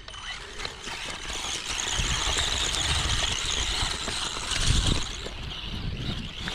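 Electric motor and geared drivetrain of a Traxxas Mini Summit RC truck whining under throttle on a 2S LiPo. The whine builds about a second in and eases off after about five seconds, with low rumbling and knocks as the truck crawls through mud and grass.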